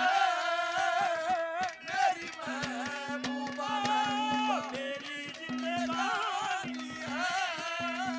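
Haryanvi ragni folk accompaniment playing an instrumental passage: a wavering, ornamented melody line over a steady, fast run of hand-drum strokes.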